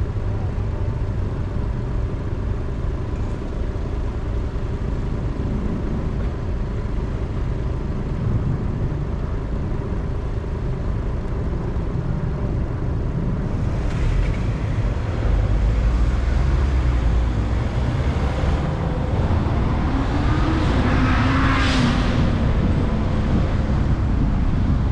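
Road traffic and a car's engine and tyre noise: a steady low rumble that gets louder about halfway through as the car moves off. Near the end a vehicle passes close by, its sound swelling with a rise and fall in pitch.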